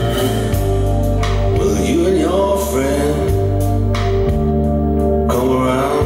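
A song played through a Harman Kardon Aura Studio speaker: heavy held bass notes and sustained organ-like chords, with a voice singing over them.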